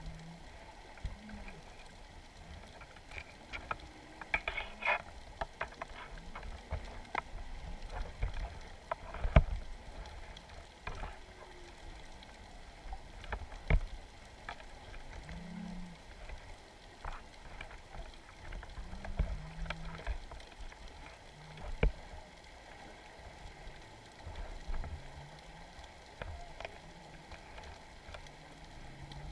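Underwater sound picked up by a GoPro in its housing on the seabed: scattered sharp clicks and knocks, with short low hums now and then over a faint hiss.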